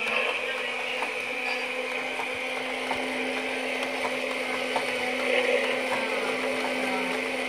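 Haynes V8 model engine running on its small electric motor: a steady whir with a constant hum, with faint ticking from the plastic pistons, rockers and valves working inside the clear engine.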